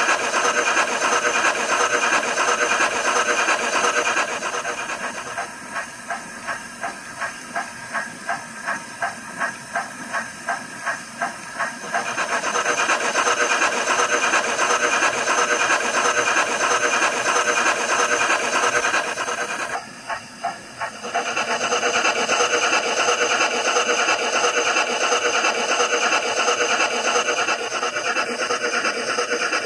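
Digitrains sound decoder in a Hornby A4 Kingfisher model locomotive, playing steam sounds through its small speaker. A steady steam hiss eases about four seconds in to a run of chuffs at about two a second, then returns at full strength about twelve seconds in, with a short break of chuffs around twenty seconds.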